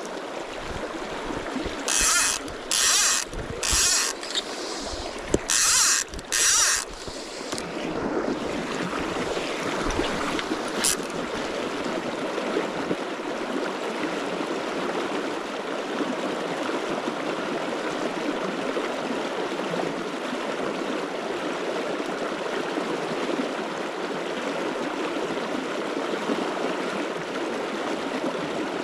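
A fly reel's click ratchet buzzing in five short pulls, three and then two, as line is stripped off it. After that comes the steady rush of the river running past.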